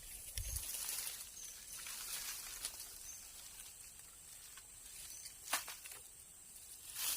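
Outdoor field ambience: a steady high insect drone with a light hissing rustle, and a couple of short sharp clicks or knocks, one about five and a half seconds in and one near the end.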